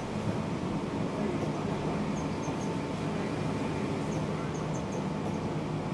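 Seibu 6000 series electric train running, heard from inside a motor car: a steady rumble from wheels and track with a faint steady tone and several short, faint high squeaks.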